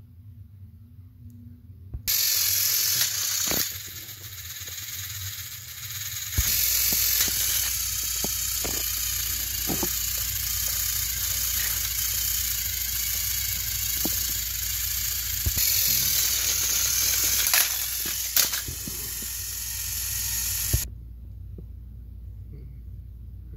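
Two battery-powered Thomas & Friends toy engines pushing against each other on plastic track: their small electric motors and gears run loudly with a ratcheting clatter. The noise starts suddenly about two seconds in, eases briefly, then runs on with scattered clicks until it cuts off abruptly near the end.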